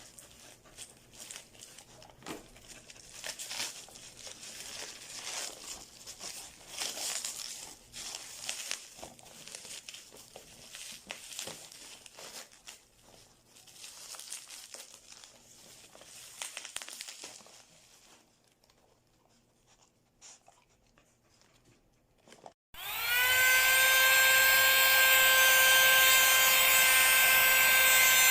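Crinkling and rustling handling noises, then a short pause. About 23 seconds in, a portable mini handheld car vacuum cleaner switches on and runs with a loud, steady, high motor whine.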